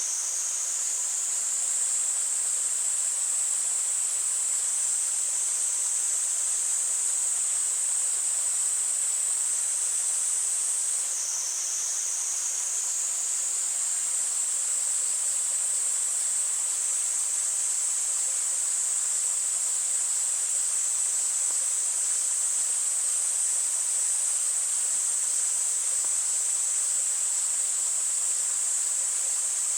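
Cicadas singing in a steady, high-pitched chorus over the continuous rush of a mountain stream; the chorus dips briefly lower in pitch about eleven seconds in.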